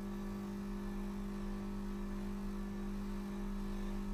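Bench polishing motor spinning a cotton buffing wheel, a steady, even hum, while a watch case part is pressed against the wheel for the final mirror-finish polish.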